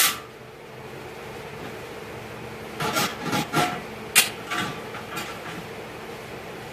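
Parts being handled and fitted by hand: a quick run of knocks, clinks and a scrape from about three to five seconds in, over a steady low hum.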